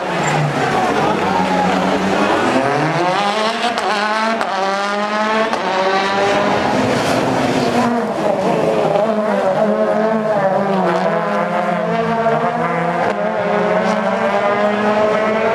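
Ford Fiesta WRC's turbocharged 1.6-litre four-cylinder engine at full race pace, revving up and down over rapid gear changes and throttle lifts, with occasional sharp pops from the exhaust.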